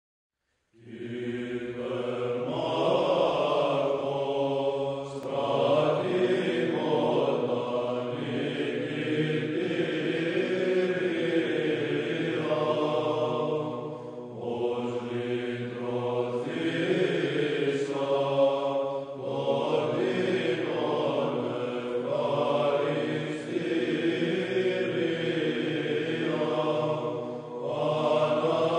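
Slow vocal chant in long held notes, beginning about a second in.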